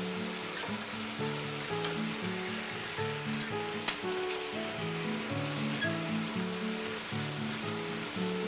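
Pork spare ribs sizzling in a frying pan in fish sauce and sugar while being stirred with chopsticks, with a sharp click about four seconds in. Soft background music with low held notes plays under the frying.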